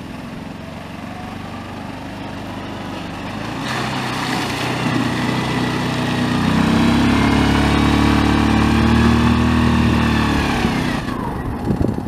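Quad bike (ATV) engine running as it drives up close, growing louder as it nears, then dropping in pitch and easing off near the end.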